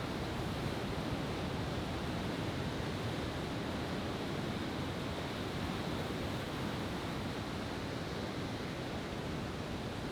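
Steady wash of ocean surf breaking on the beach, with no firework bursts.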